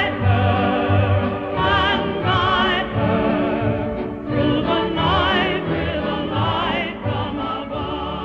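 Background music: a singer with wide operatic vibrato, holding long notes over an orchestral accompaniment, easing down in level near the end.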